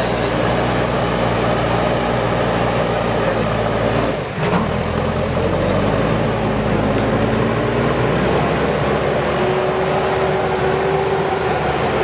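Diesel engine of a JCB backhoe loader running steadily under load while its front bucket pushes and levels mud. The engine note drops briefly about four seconds in, then picks up again, with a rising whine near the end.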